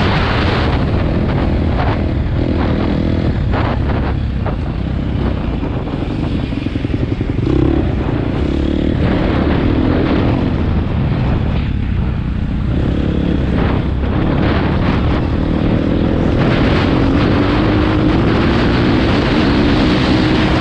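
Motocross bike engine running hard as the bike is ridden over a dirt track. The throttle is rolled off and opened again around 5 and 12 seconds in, and the engine pitch climbs steadily near the end.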